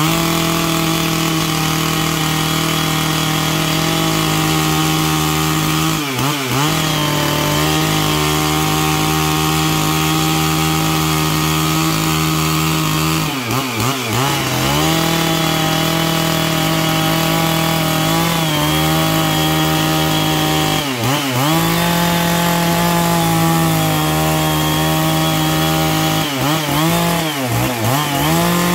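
Stihl MS 660 two-stroke chainsaw fitted with a ripping chain, cutting lengthwise along a larch log. The engine runs at high speed under load, its pitch dipping briefly and picking back up several times.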